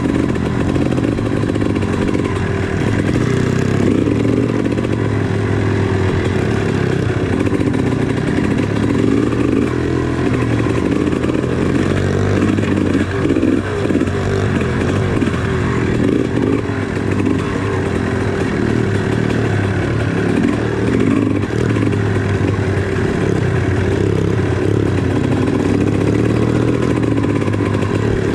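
Dirt bike engine running steadily at trail-riding speed, with small rises and falls in throttle.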